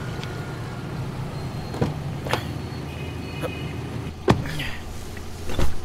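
Car engine idling with a steady low hum while a car door is opened and shut as someone gets into the cab: a few light clicks, a sharp knock about four seconds in, then a heavy thump near the end.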